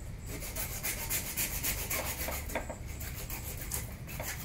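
A hand-held hacksaw blade cutting through a plastic water pipe with quick, repeated back-and-forth strokes.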